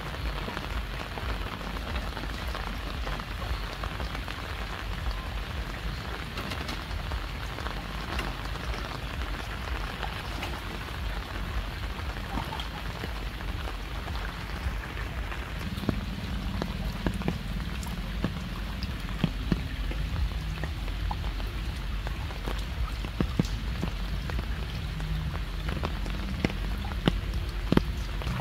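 Steady rain falling, with scattered sharp drip and drop hits.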